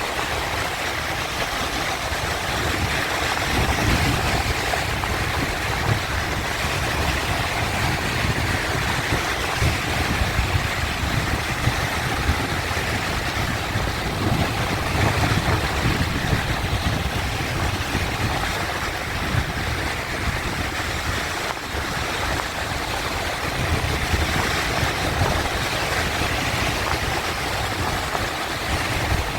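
Sea waves washing in: a continuous rushing with slow swells that rise and fall every several seconds.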